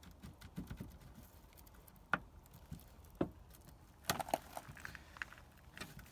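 Hands wiggling a loose plastic trim piece free from a Ford Crown Victoria's front door at the mirror mount: faint scattered plastic clicks and small knocks. There are sharper clicks about two and three seconds in and a quick cluster just after four seconds.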